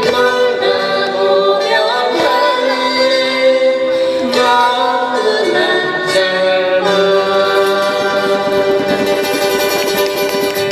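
Live acoustic band playing through a PA: a woman and a man singing together over strummed acoustic guitars. A long note is held through the last few seconds.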